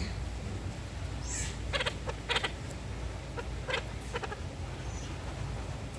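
Moustached parakeets calling, a handful of short separate squawks spread over a few seconds, over a steady low hum.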